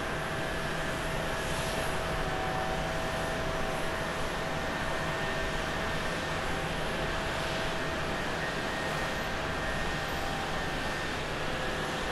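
Boeing 737-800's CFM56 jet engines running as the airliner rolls out along the runway after landing: a steady rush of noise with a thin, even whine.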